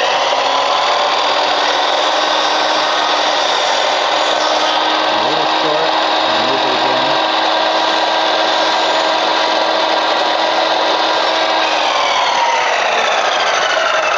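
Chicago Electric 12-inch sliding compound miter saw's motor and 60-tooth blade running at full speed with a steady whine while a bevel is cut through a piece of wood trim. The saw is just reaching speed at the start, and its pitch falls steadily over the last couple of seconds as the blade winds down.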